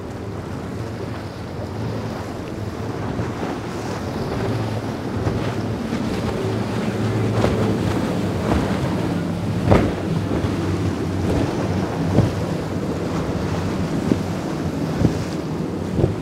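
Outboard-powered center-console boats running at speed through choppy water: a steady engine drone under the hiss of spray and wind on the microphone, growing louder over the first half. Several sharp slaps in the second half as a hull hits the waves.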